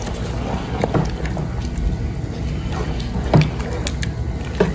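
Wooden spoon stirring thick chicken and mandioquinha broth in a metal pot: liquid sloshing with a few light knocks of the spoon, over a steady low hum.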